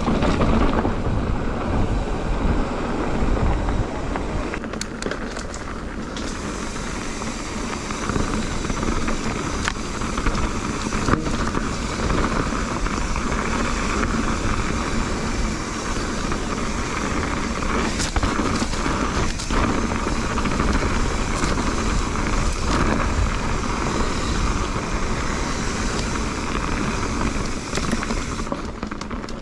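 Mountain bike ridden along a dirt trail: tyres rolling over dirt and stones, with scattered clicks and knocks as the bike rattles over bumps, and a steady rush of wind on the microphone.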